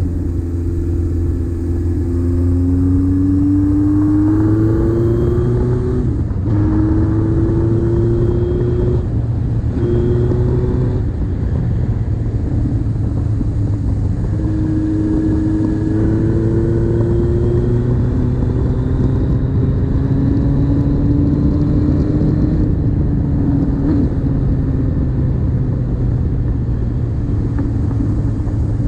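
1976 Kawasaki Z900 A4's air-cooled inline-four engine accelerating through the gears. Its pitch climbs and drops back at upshifts about six, nine and eleven seconds in, over a steady low rumble. Later it pulls in longer, slower rises.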